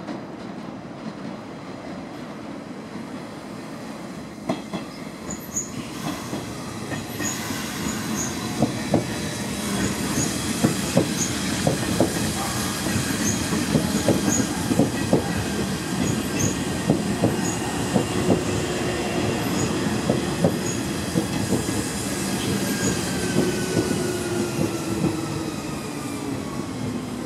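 Nishitetsu 5000-series electric train running in beside the platform, louder as it draws close. Its wheels clack over rail joints and points, with short high squeaks, and a falling whine near the end as it slows.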